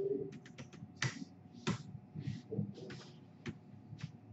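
Typing on a computer keyboard: a string of irregular key clicks, some louder than others.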